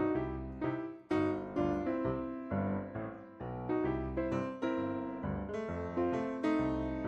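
Background music: a bouncy piano melody with notes struck about twice a second, each one dying away.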